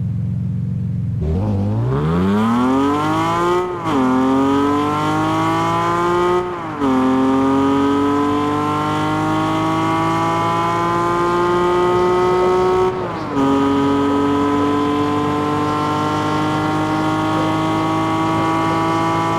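Car engine pulling away from idle and accelerating through the gears of a five-speed gearbox. The pitch climbs steeply in first gear, then drops back and climbs again at three upshifts, each marked by a short dip in loudness. The climbs grow slower in the higher gears.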